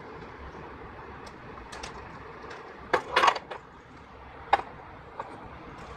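Small plastic toy pieces clicking and knocking together as they are handled and fitted. There is a louder quick cluster of knocks about three seconds in, and single clicks after it.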